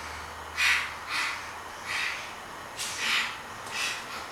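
A young child making a string of short, breathy, unvoiced sounds, about six of them, each under half a second, with no voice or pitch in them.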